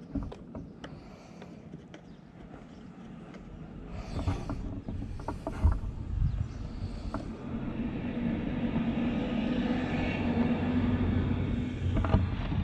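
Small clicks and knocks of plastic trim clips and screws being handled and pushed into place. About halfway through, a steady mechanical hum builds up and holds to the end.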